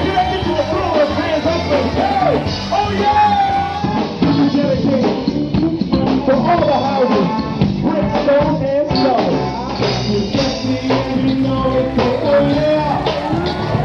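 Band music with a lead singer's voice carrying a wavering melody over the accompaniment.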